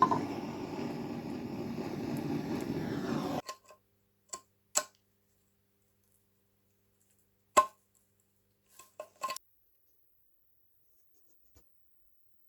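A workshop tool runs briefly with a rough, steady noise that starts and cuts off suddenly after about three and a half seconds, followed by a handful of light knocks and clicks.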